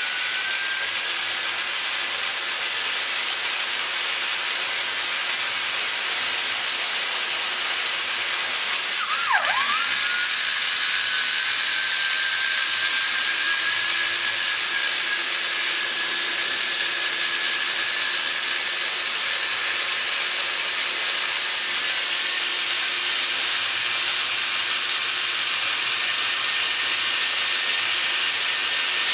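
Die grinder with a small ball-shaped bit grinding down the machinist ridge beside the valve seat in a cast iron Ford FE 390 cylinder head's combustion chamber. A steady high whine over hiss, which dips sharply about nine seconds in and then climbs slowly back up to speed.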